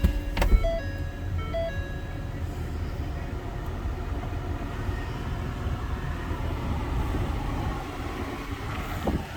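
A short run of electronic beeps at several different pitches, with a sharp click at the start and another about half a second in. Then a steady low rumble with hiss, and a couple of knocks near the end.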